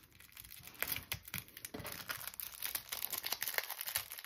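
Clear plastic packaging crinkling and crackling as it is handled and pulled open, in a run of irregular quick crackles.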